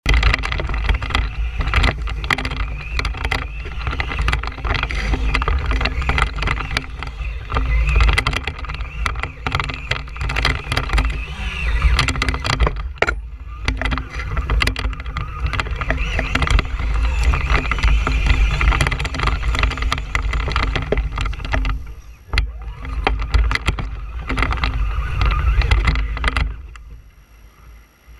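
Traxxas Stampede 2WD RC monster truck driving over grass and pavement, heard from a camera mounted on the truck itself: electric motor and drivetrain whine rising and falling with the throttle, over a heavy rumble and constant rattling and clicking from the bumps. It goes much quieter near the end as the truck slows.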